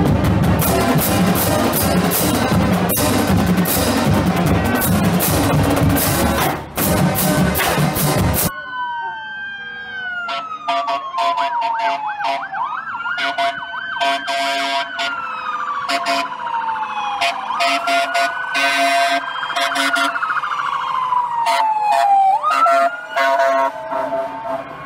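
A pep band of saxophones, brass and drums playing, cut off abruptly about eight seconds in. After that, a fire engine's siren wails, falling slowly and then sweeping quickly back up about three times, with a few sharp noises in between.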